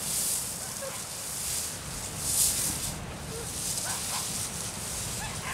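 Surf washing on a shingle beach, with wind rumbling on the microphone. A few faint short animal calls sound about four seconds in and again near the end.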